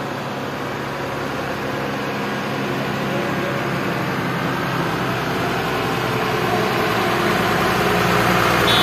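Diesel engine of a Tata bus running steadily as it approaches, its low hum growing gradually louder.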